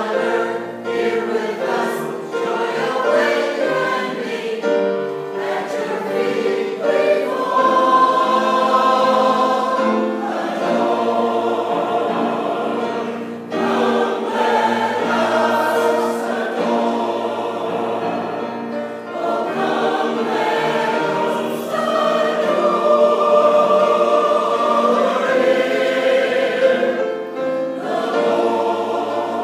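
Mixed choir of men's and women's voices singing a sacred cantata, holding sustained chords that change every few seconds.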